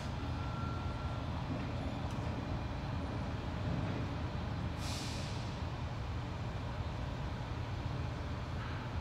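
Steady low engine and road rumble of a moving vehicle, heard from inside its cab, with one short hiss of air about five seconds in.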